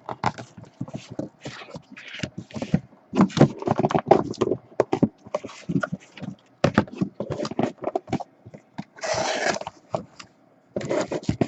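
Cardboard hobby boxes scraping and knocking against each other and the case as they are worked out of a tightly packed case, in a string of irregular rubs and taps with a few longer scrapes.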